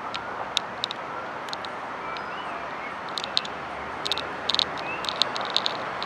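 Steady hum of distant city traffic, heard from high up, with short, high-pitched bird chirps scattered over it, bunched about three seconds in and again between four and five and a half seconds.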